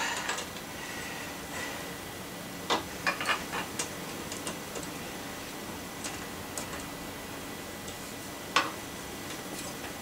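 Several sharp metal clicks and light knocks from a hand tool working on a bicycle crank and bottom bracket: a quick cluster of about five clicks around three seconds in, then a single knock near the end.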